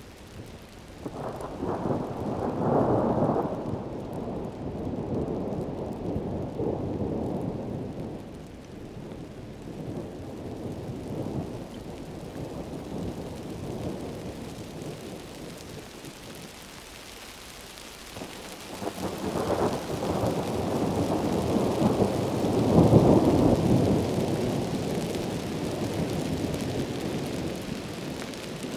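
Heavy rain hissing steadily, with two long rolls of thunder: one swelling a second or so in and peaking a couple of seconds later, the other building about two-thirds of the way through and rumbling on for several seconds.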